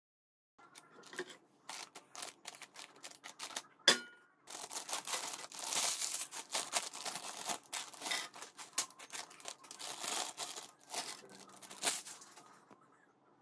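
Foil Lay's Yogurt & Herb chip packets crinkling and tearing open, and potato chips rattling as they are poured onto a paper plate, in irregular crackles with one sharp snap about four seconds in.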